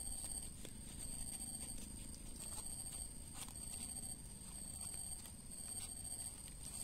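Steady high-pitched insect drone, two shrill tones held throughout, with a low background rumble and a few faint clicks.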